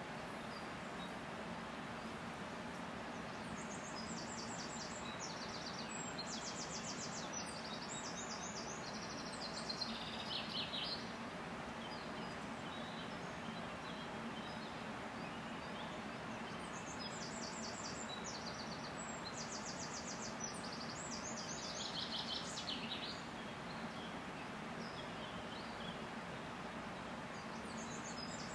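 Steady rush of a river with a songbird singing over it in long bouts of fast, high, repeated trilled notes: twice, with a third bout starting near the end.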